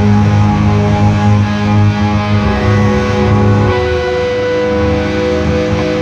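Slow instrumental music from electric guitar and pedal steel guitar playing sustained, held chords, the harmony shifting to a new chord about four seconds in.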